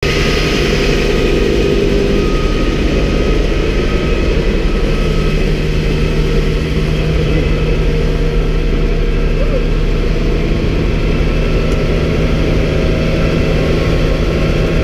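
Bell 47 helicopter running on the ground, its piston engine and main rotor giving a loud, steady drone heard from inside the doorless cabin.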